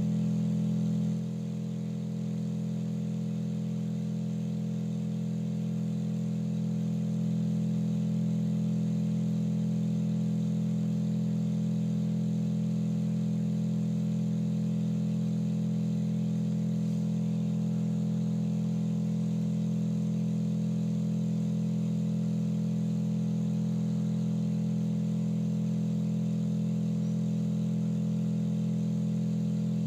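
Steady low humming drone of several close tones, the kind of sound that drives a cymatics rig and sets the surface vibrating into patterns. It dips slightly in level about a second in, then holds steady.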